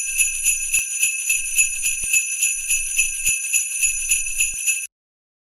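Sleigh bells shaken in a steady rhythm, about four shakes a second, cutting off abruptly near the end.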